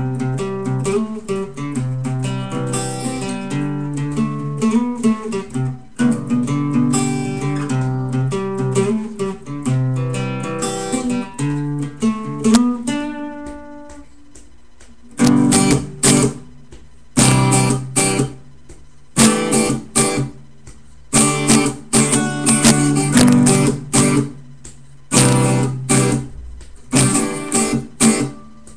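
Acoustic guitar played solo: picked notes ring out for the first half, fade briefly, then short strummed chords follow, each cut off with a gap before the next.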